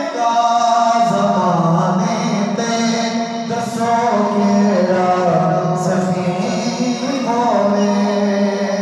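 A man singing a naat, a devotional Urdu/Punjabi song in praise of the Prophet, into a microphone over a loudspeaker, holding long, drawn-out notes that glide from pitch to pitch.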